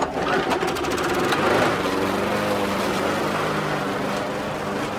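Walk-behind rotary lawn mower's small petrol engine, just pull-started, catching and picking up over the first second or so, then running steadily.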